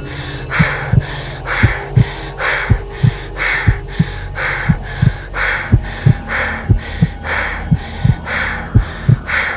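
Rhythmic heavy breathing, about one breath a second, with low heartbeat-like thumps over a steady low hum.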